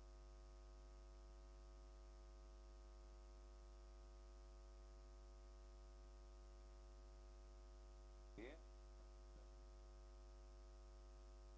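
Near silence with a steady electrical hum. A brief faint vocal sound comes about eight and a half seconds in.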